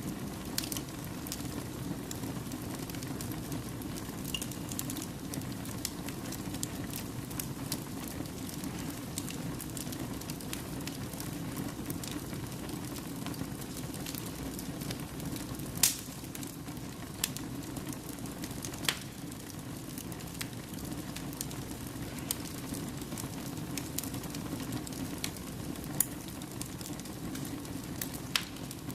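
Fire burning in a fireplace: a steady low hiss of flames with scattered sharp crackles and pops. The loudest pops come about halfway through and again near the end.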